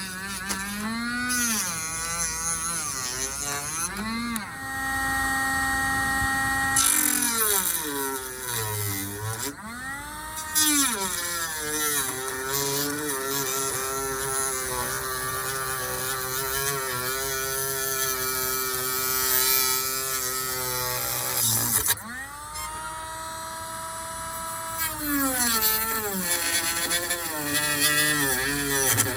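An engine revving up and down again and again, with a few held revs in between.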